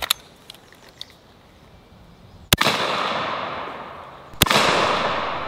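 Zeus big-bore pre-charged air rifle with a .58 calibre barrel firing a 24-gauge buckshot shell: two sharp reports about two seconds apart, each trailing off over a second or two.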